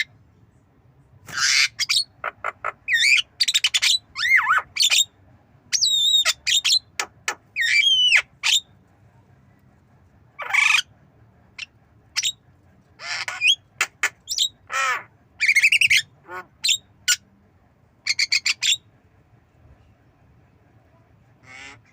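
Javan myna calling: a rapid string of harsh squawks, clicks and whistled notes, some gliding up and down, in spells with short pauses, going quiet for the last few seconds.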